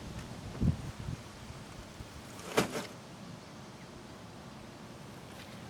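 Handling noise: a dull thump a little under a second in, then a sharp click or knock near the middle, over faint steady background hiss.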